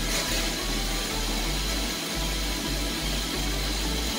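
Background music with a bass line that changes note about every half second.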